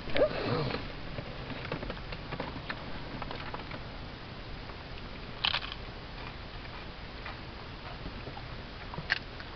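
Quiet rustling and handling noise from someone shifting in a car seat, with scattered light clicks and one sharper click about five and a half seconds in.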